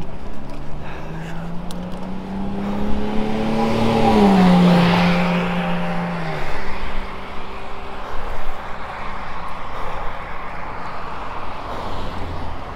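A motor vehicle passes close by, its engine note rising as it approaches and then dropping in pitch as it goes past about four seconds in. Wind noise on the microphone of a moving bicycle runs underneath.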